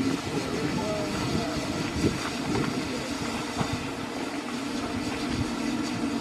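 Standing steam locomotive under steam: a steady low rumble with a hiss above it and a few faint clicks.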